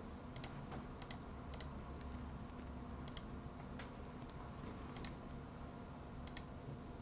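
Faint, irregular clicking of computer keys, about a dozen scattered clicks, over a low steady hum.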